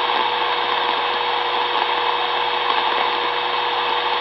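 CRT 7900 CB radio's speaker hissing with open-channel static on 27.455 MHz upper sideband, switched to receive after a call, with no station answering yet. A steady single tone runs through the hiss.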